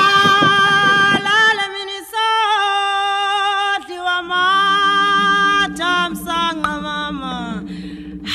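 High voices calling out in long held notes, then a song: sung notes stepping up and down in pitch, joined about four seconds in by a steady low drone.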